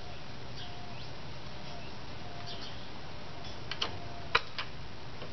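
A few light metal clicks and taps from hand tools and brake-shoe hardware on a drum-brake backing plate, bunched together about four seconds in, the third one the sharpest, over a steady low hum.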